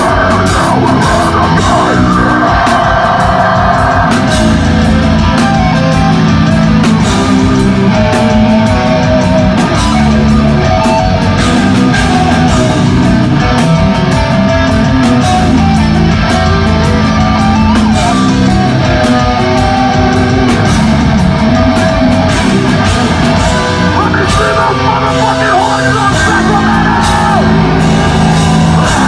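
Deathcore band playing live: heavily distorted, down-tuned electric guitars over a fast drum kit, with screamed vocals.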